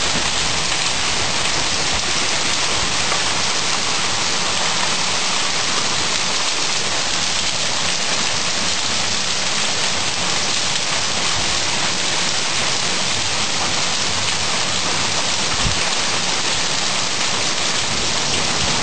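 Heavy thunderstorm rain pouring down steadily: a dense, even hiss of drops hitting the ground and surfaces.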